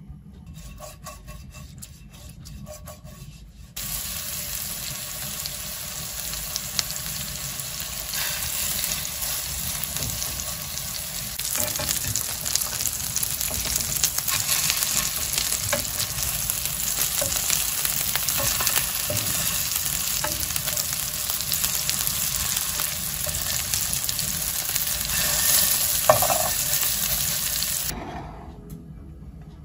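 Chicken cutlets sizzling as they fry in hot oil in a frying pan, with scattered clicks and scrapes of a fork turning them. The sizzling starts suddenly about four seconds in and cuts off near the end.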